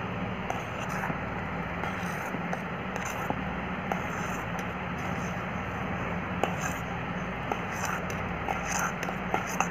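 Metal spoon stirring thick semolina cake batter in a stainless steel bowl, with scattered light scrapes and clicks against the bowl's side over a steady background hum.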